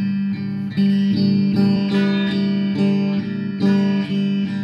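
Stratocaster-style electric guitar, clean tone, strumming chords in a steady rhythm.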